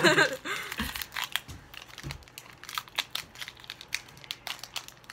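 Foil booster-pack wrapper crinkling in the hands as it is worked and torn open, a run of small irregular crackles.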